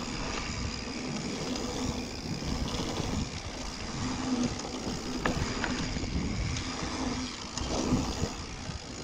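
Wind rushing over an action camera's microphone while riding a mountain bike down a rough dirt trail, with the bike rattling and clicking over bumps.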